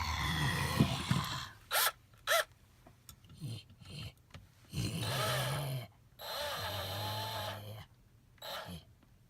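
A person's wordless voice sounds: short gasps, groans and hums, broken by pauses.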